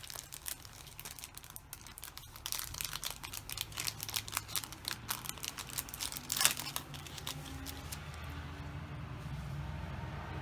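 Plastic packaging of a screen protector kit crinkling and rustling as it is handled and opened, with a loud crackle about six and a half seconds in. The crinkling then gives way to a steady low hum.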